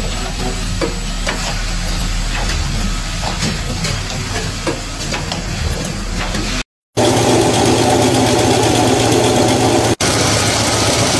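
Tape-winding machine spooling white tape onto plastic spools, running with a steady hum and irregular light clicks. It cuts off about seven seconds in, and after a moment's silence a narrow-webbing loom runs, louder and with a dense, steady mechanical clatter.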